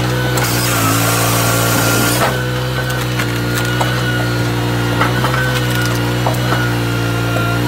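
Dyna firewood processor running: its engine hums steadily under a higher whine that dips now and then as the machine works. A few sharp cracks and knocks of logs being split sound over it, one clear one about two seconds in.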